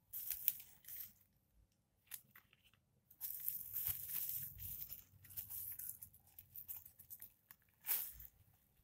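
Plastic bubble wrap around a portable radio crinkling and crackling as it is handled. It comes in short bursts at first, then a longer stretch of rustling, and ends with one sharp, louder crackle near the end.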